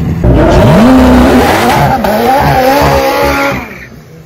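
McLaren 765LT's twin-turbo V8 revving hard in a drag-strip burnout, with tyres squealing. The pitch climbs, then holds and wavers for about three seconds before the revs drop away near the end.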